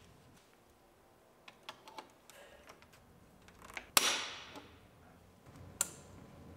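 Hand-squeezed pop rivet gun setting a grille rivet: a few light clicks as the handles are worked, then about four seconds in a sharp snap with a ringing tail as the rivet's mandrel breaks off, and another sharp click a couple of seconds later.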